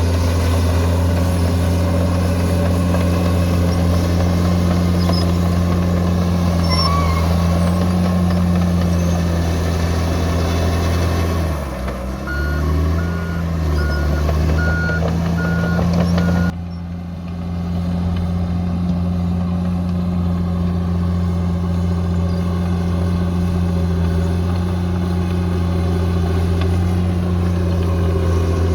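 Heavy diesel engine of a bulldozer running steadily under load. Around halfway through the engine note dips and wavers while a reversing alarm beeps about every half second for several seconds, then the steady engine sound resumes after an abrupt change.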